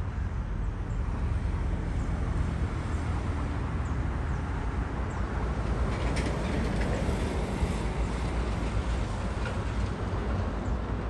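Four Progress D-18T turbofans of an Antonov An-124 Ruslan at takeoff power as it climbs out, a steady deep rumble that grows fullest about six seconds in.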